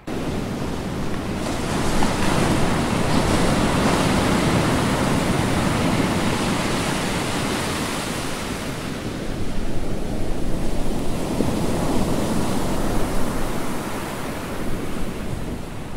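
Steady rush of wind and water as a small sailboat sails fast through choppy sea, with wind blowing on the microphone.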